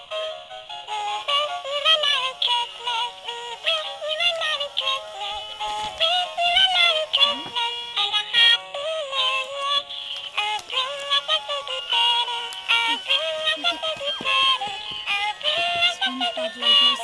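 Animated Christmas plush toy singing a song through its small built-in speaker. The electronic voice and music sound thin and tinny, with no bass.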